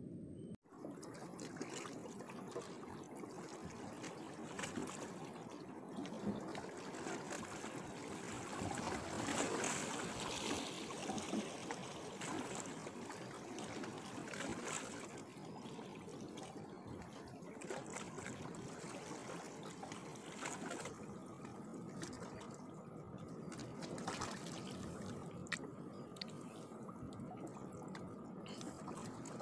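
Small waves lapping and trickling at the water's edge: a steady wash with scattered small splashes, louder for a couple of seconds about ten seconds in.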